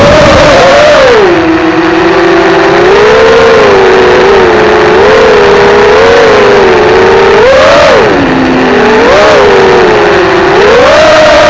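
Quadcopter motors and propellers whining loud and close from the onboard camera, the pitch rising and falling with the throttle. It starts high, drops about a second in, wavers up and down, and climbs again near the end.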